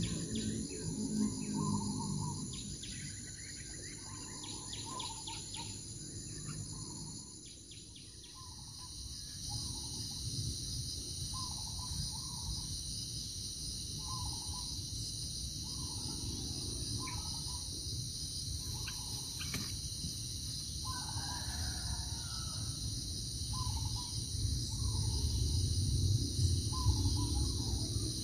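A bird calling in short notes, repeating every second or two, over the steady buzzing of insects and a low rumble. A few brief chirps in the first few seconds.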